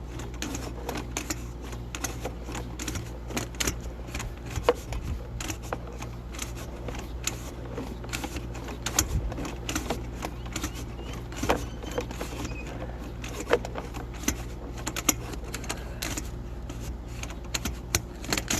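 A sewer inspection camera's push cable being fed down a drain line, making irregular sharp clicks and ticks over a steady low hum.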